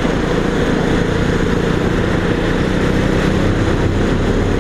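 Motorcycle engine running at a steady cruising speed, under a steady rush of wind and road noise.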